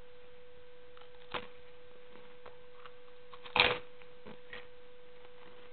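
Chewing a mouthful of dry saltine crackers: soft crunches and mouth clicks, with one louder chewing sound about three and a half seconds in. A steady high electrical hum runs underneath.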